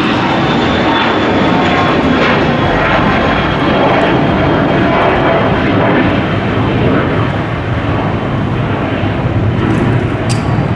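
A business jet's turbofan engines running loud and close: a steady roar with a high whine that slowly falls in pitch.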